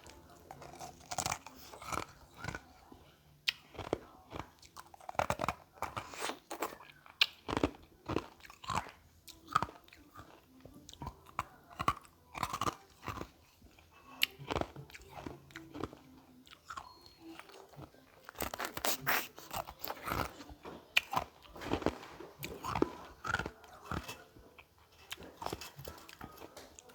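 Carbonated ice being bitten and chewed close to the microphone: a continuous run of sharp, crackly crunches, thickest about two-thirds of the way through.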